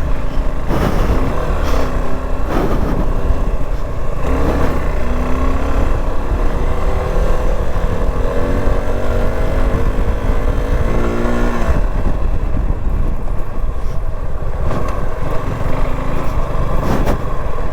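Motorcycle engine accelerating, its pitch climbing steadily for several seconds and then dropping off about twelve seconds in, over a heavy low rumble.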